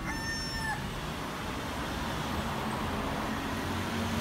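A short, high animal cry held for under a second at the start, like a cat's meow, then steady street traffic noise with a vehicle's low engine drone growing toward the end.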